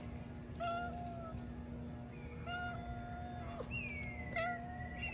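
Black cat meowing three times as it walks, the middle meow the longest and drawn out with a drop in pitch at its end: a talkative cat.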